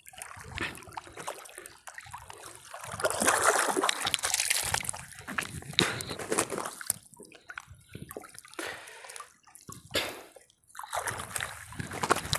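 A wet fishing net being hauled hand over hand out of the water into a small boat, with water dripping and splashing off the mesh in uneven bursts, busiest a few seconds in.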